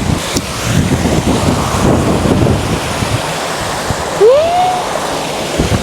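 Wind buffeting the microphone: an uneven, gusty rumble. About four seconds in there is a short rising vocal sound.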